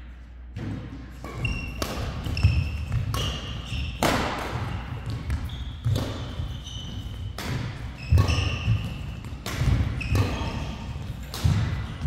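Doubles badminton rally: racket strokes on the shuttlecock in quick succession, starting about half a second in, with shoe squeaks and footfalls on the court mat between them.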